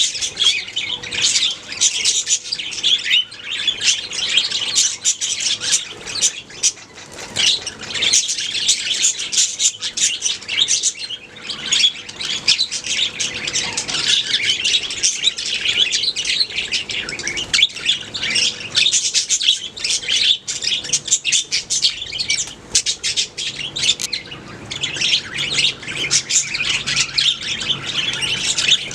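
Several budgerigars (budgies) chattering and chirping together in a dense run of warbles, chirps and short squawks, with no break.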